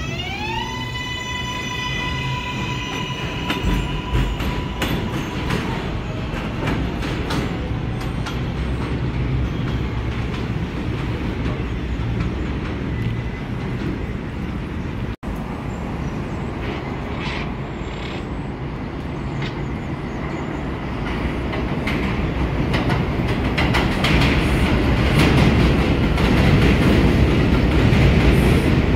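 An R142A subway train pulls out of an elevated station. Its traction motors give a whine that rises in the first second and then holds steady for about five seconds, over the rumble and clatter of its wheels on the track. After a brief dropout partway through, another subway train grows louder as it comes in on the far track.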